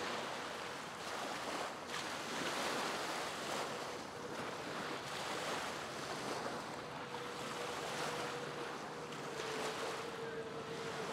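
Wind blowing across the microphone over choppy water, a steady rushing noise. A faint thin whine sits above it and dips slightly in pitch near the end.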